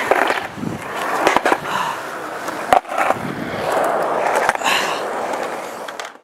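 Skateboard wheels rolling over concrete, a continuous gritty roll broken by a few sharp clacks, cutting off abruptly near the end.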